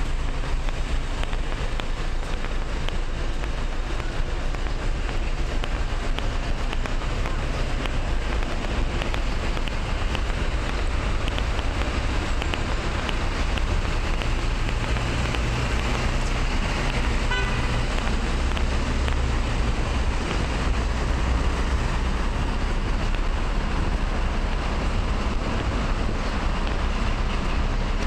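City road traffic: a steady wash of cars passing on a multi-lane street, with a low engine and tyre rumble that swells heavier midway as larger vehicles pass.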